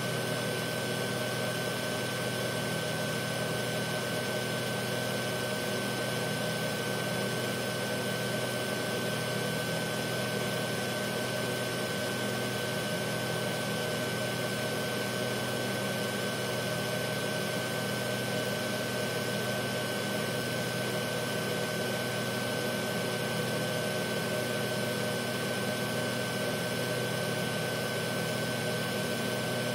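Filament extrusion line with its spool winder running in auto mode: a steady motor hum with a constant high whine on top, unchanging throughout.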